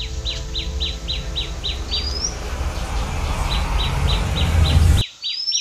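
Small bird chirping over and over, about three short chirps a second, with a brief rising whistle every few seconds. Under it runs a low rumble that cuts off suddenly about five seconds in.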